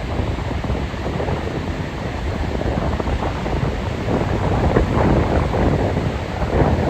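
Stormy sea: waves breaking and surf rushing, with strong wind buffeting the microphone. A louder surge of surf comes about four to five seconds in.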